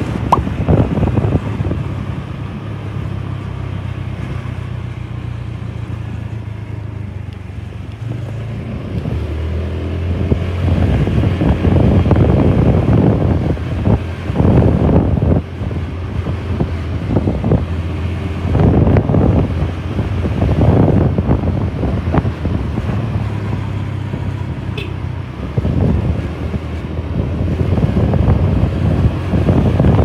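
Wind buffeting a handheld microphone in uneven gusts, over a steady low rumble, strongest about a third of the way in.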